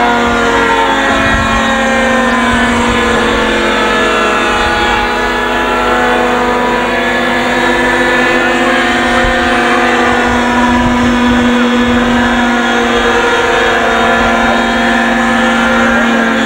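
Radio-controlled scale model helicopter's engine running at high speed in flight, a continuous whine whose pitch drifts slowly up and down as the model manoeuvres.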